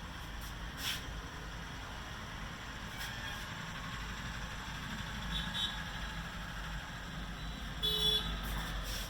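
Steady street traffic noise with a short vehicle horn toot about eight seconds in, and a few faint clicks.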